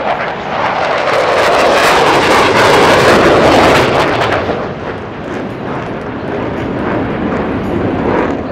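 USAF Thunderbirds F-16 Fighting Falcon jet engines rushing past low overhead. The noise builds to its loudest about two to four seconds in, then fades as the jet pulls away.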